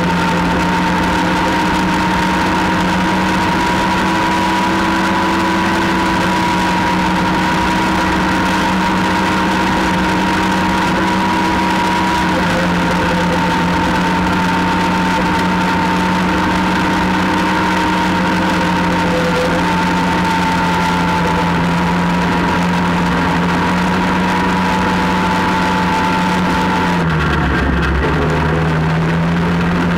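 ATV engine running steadily at cruising speed, loud and close. Near the end the engine note drops as the throttle eases off, then climbs back.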